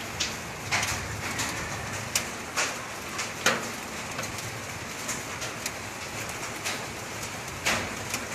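Volcanic ashfall rain laden with sand and small stones pattering steadily on a roof. Sharp, irregular clacks are heard as individual stones strike it.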